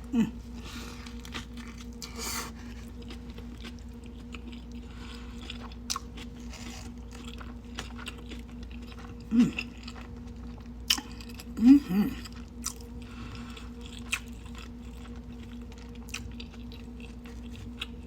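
Close-up chewing and biting into a burger with extra onion, with small crunches and wet mouth clicks. A few short vocal sounds break in, the loudest a pair about 12 seconds in, over a steady low electrical hum.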